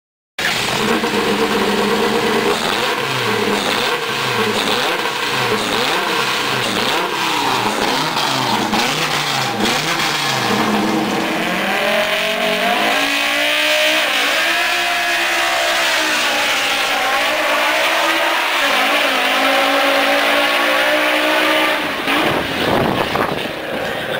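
Fiat Uno drag car with a 2.4 20-valve Fivetech inline-five, revved in quick repeated bursts on the start line, then launching and accelerating hard down the strip, the pitch climbing and falling back at each gear change. The engine note drops away a couple of seconds before the end.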